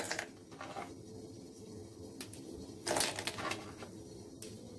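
Bourbon biscuits being snapped by hand and the pieces dropped into a stainless steel mixer-grinder jar: several scattered crisp snaps and light clinks, the loudest about three seconds in.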